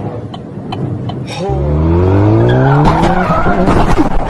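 A car engine revving hard, starting suddenly about a second and a half in with its pitch climbing steadily, then giving way to loud tire squeal and rough skidding noise as the car slides.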